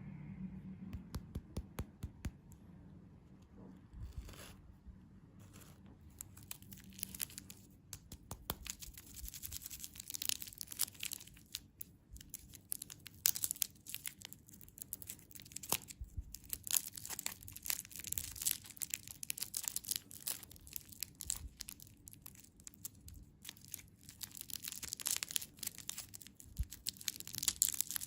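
Close-up crinkling and tearing of candy wrappers, a dense irregular crackle that starts sparse and grows busier after the first few seconds.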